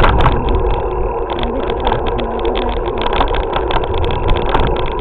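Bicycle rolling over concrete, picked up by a camera riding along: a steady low rumble with many small clicks and rattles.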